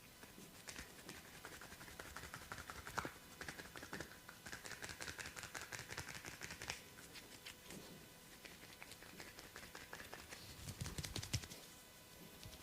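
Hands massaging skin: rubbing, with quick runs of light taps and small clicks, and two sharper clicks, one about three seconds in and one near the end.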